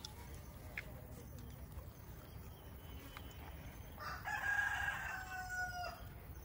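A rooster crowing once, starting about four seconds in: one held call of about two seconds that dips slightly in pitch at the end.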